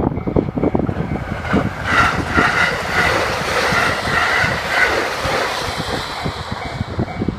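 JR 681-series 'Shirasagi' electric train running past the crossing, the rush and clatter of its wheels on the rails swelling to a peak a couple of seconds in and then dying away. Under it rings the level-crossing warning bell, with wind buffeting the microphone.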